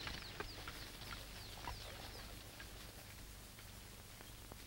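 Faint bird chirps, short falling notes repeated every half second or so, over the steady hum and hiss of an old film soundtrack.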